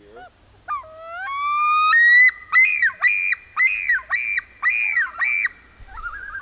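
Common loon yodelling: an opening call that climbs in pitch in steps over about a second, then breaks into about seven repeated two-note phrases, a little over two a second, which stop near the end. The yodel is the male loon's territorial call.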